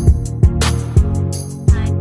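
Background music with a steady beat: kick drum and snare hits over sustained bass and chord notes.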